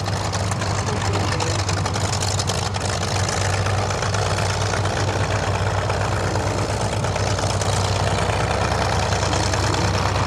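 Hawker Sea Fury FB.11's radial engine idling steadily on the ground, with its propeller turning slowly.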